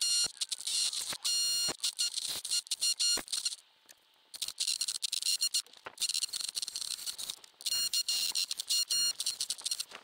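A power drill boring through a brick and render wall in short, repeated bursts, its grinding ringing out high. There is a pause of about a second near the four-second mark, and lumps of render break out of the wall face.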